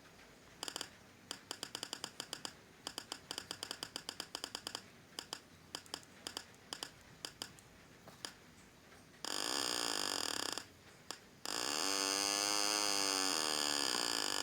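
Homemade two-transistor (S9014/S9015) oscillator driving a small speaker, making a door-sound effect: a run of sharp clicks that speed up and slow down, then a short buzz and a longer buzzy tone whose pitch sags and climbs back.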